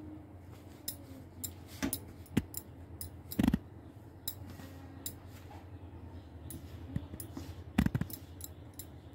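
Hand rubbing and squeezing maida flour and oil in a glass bowl: a soft rustle with scattered clicks and knocks against the glass, the loudest about three and a half and eight seconds in.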